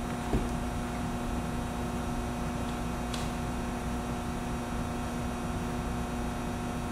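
Steady room hum with a few constant tones beneath it, with a faint click about three seconds in.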